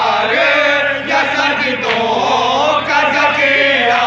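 Men chanting loudly together, a lead male voice carrying long held, wavering notes.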